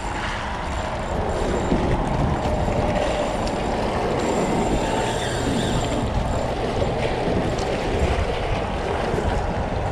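Wind buffeting the microphone, with water washing against the rocks at the water's edge: a steady rushing noise.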